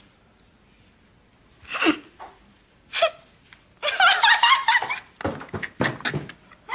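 A girl laughing, starting about two seconds in with short bursts, then a longer run of laughter about four seconds in, breaking into quick short pulses near the end.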